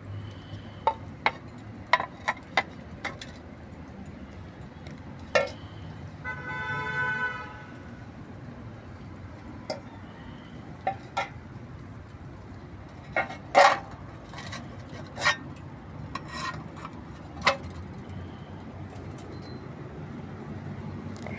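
A vehicle horn sounds once, held for about a second and a half, about six seconds in, over a steady low background rumble. Sharp clicks and knocks come at irregular moments throughout.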